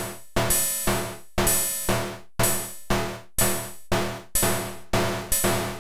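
DIY XORbell metallic noise percussion module, square-wave oscillators XORed together in CMOS logic, triggered about twice a second. Each hit is a sharp, clangy cowbell/hi-hat-like strike with a noisy hiss on top that decays in under half a second. The timbre shifts a little from hit to hit as its pots are turned.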